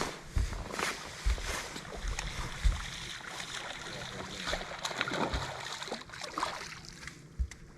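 Wind and water noise around a small fishing boat, a steady hiss broken by irregular low knocks and thumps.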